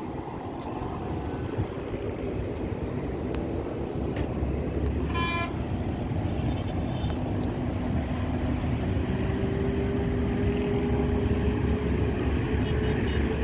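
Air conditioner outdoor unit running during gas charging: a steady low mechanical hum and rumble, with a faint tone slowly rising in the second half. A short pitched beep sounds once about five seconds in.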